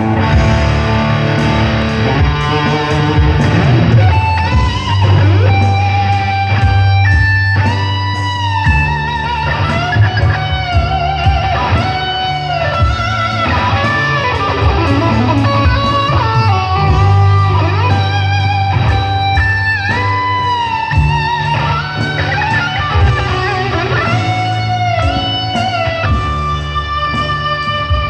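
Live band playing an instrumental: an electric guitar plays a melody of sustained notes with pitch bends over held electric bass notes.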